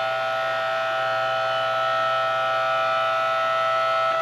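Electric hydraulic log splitter's motor and pump running with a steady, high-pitched whine.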